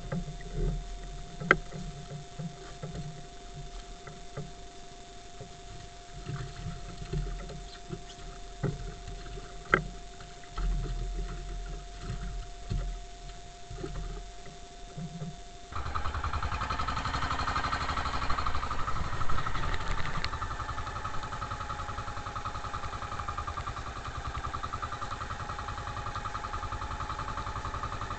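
Scattered light knocks and handling clicks over a faint steady hum, then about halfway through the steady running of an outrigger boat's engine comes in suddenly and continues.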